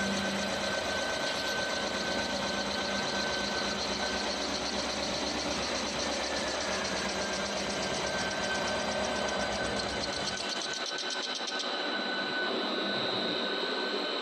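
CNC metal spinning machine running, a steady mechanical whir with a high whine and a fast even ticking. The low rumble drops out about ten seconds in.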